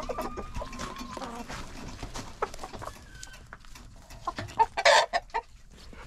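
Backyard laying hens clucking and calling while they feed at a hanging feeder, with a drawn-out call in the first second and a shorter one about three seconds in, over scattered small ticks and scratches. A loud, short rush of noise comes about five seconds in.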